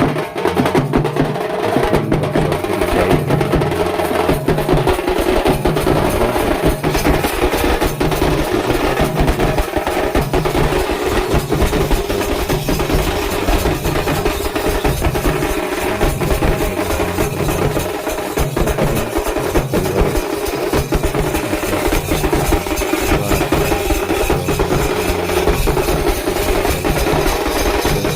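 Drums and clacking percussion played fast and loud in a steady, repeating rhythm.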